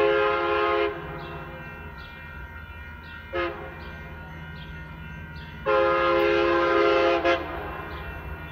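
Metrolink train's air horn sounding in a pattern: a long blast ending about a second in, a short toot, then another long blast and a brief toot near the end. A steady low rumble runs beneath.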